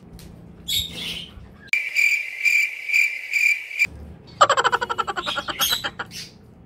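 Cricket-chirp sound effect: a high chirping that pulses about twice a second, starts and stops abruptly, and is followed by a rapid buzzing trill.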